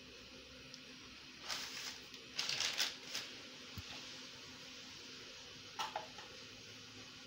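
A bag of flour being picked up and handled, giving two short rustles and a couple of light knocks and scrapes, over a faint steady hum.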